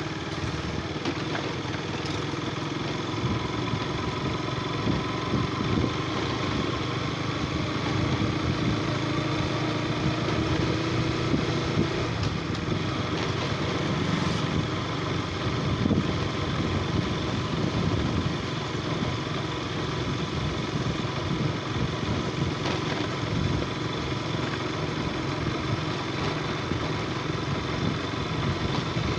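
Motorcycle engine running while it is ridden, with a steady road and wind rush. The engine note rises slowly over the first dozen seconds, then holds.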